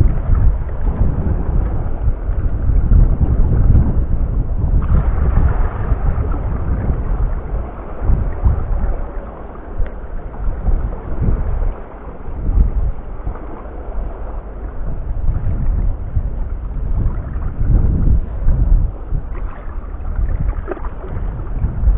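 Wind buffeting the microphone: a loud, gusting low rumble that swells and fades.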